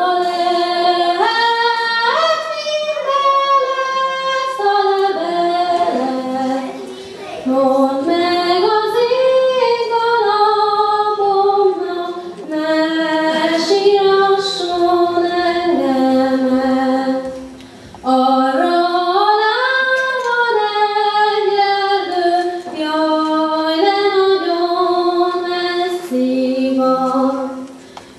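A young woman singing a solo melody into a handheld microphone through the hall's PA, pausing briefly between phrases.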